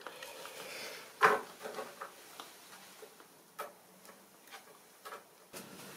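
Light clicks and knocks as a plastic OO-scale model locomotive is lifted off the track, turned round by hand and set back on the rails. The loudest knock is about a second in, with a few smaller clicks after it.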